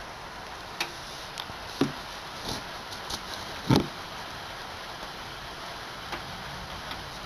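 Steady rain falling, with a scattering of sharp, irregular knocks of uneven loudness, the loudest a little before halfway through.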